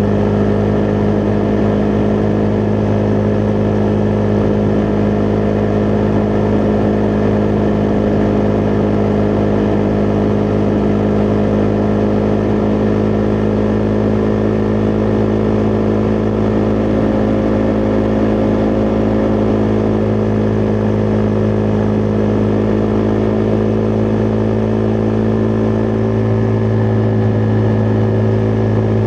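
Husqvarna Vitpilen 401's single-cylinder engine running at a steady cruise, its note holding one pitch without revving up or down.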